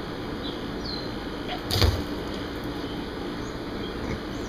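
A steady background hum with one loud thump a little under two seconds in, and a few short, faint high chirps.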